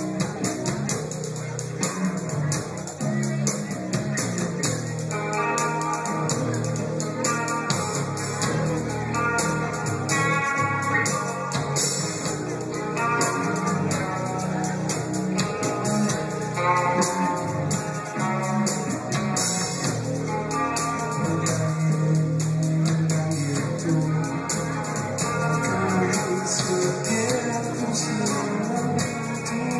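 Live progressive rock band playing an instrumental passage: electric guitar lines that enter about five seconds in, over a heavy bass and drums with steady cymbals.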